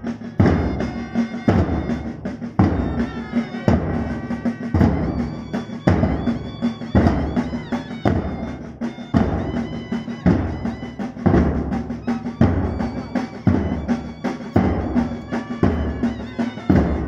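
Large bass drums beaten in a slow, steady march beat, one heavy stroke about every second, with a band holding pitched notes over the drumming.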